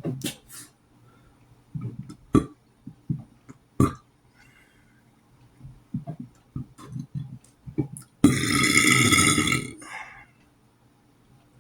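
A person burping: a few short, sharp sounds over the first eight seconds, then one long, loud burp lasting about a second and a half.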